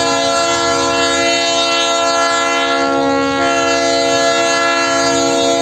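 KCSM diesel locomotive's multi-chime air horn held in one long steady blast, several notes sounding together as a chord, sounded as a warning for the road crossing the locomotive is approaching.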